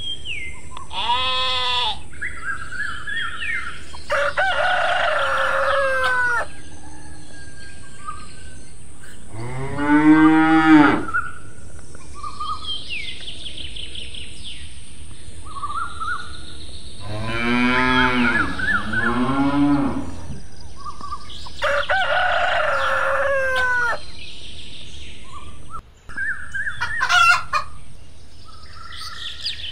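Farm-animal sounds: cows mooing, long and low, about ten seconds in and again near twenty seconds, with chicken calls and small bird chirps in between.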